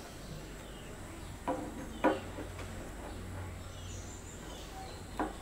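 Quiet background ambience with faint bird chirps. Three short, sharp sounds break it, two close together about a second and a half in and one near the end.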